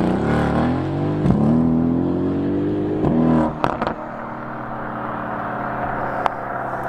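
Mercedes-AMG GT's twin-turbo V8 accelerating hard, its pitch rising through the revs with an upshift about three seconds in. Then the throttle is lifted with a few exhaust crackles, and the engine settles to a steady lower drone.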